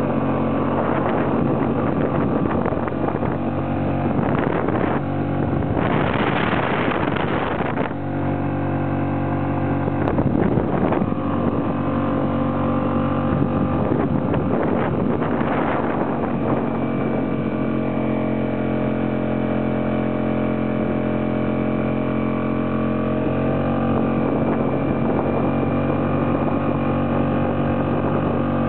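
Suzuki DF2.5 four-stroke outboard running steadily at half throttle, pushing a small inflatable dinghy on the plane. Twice, a rush of noise rises over the engine, about six seconds in and again near the middle.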